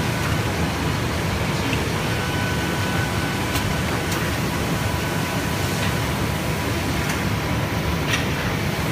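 Glass loading machine and surrounding workshop machinery running: a steady low rumble and hum with a faint thin whine and a few faint clicks.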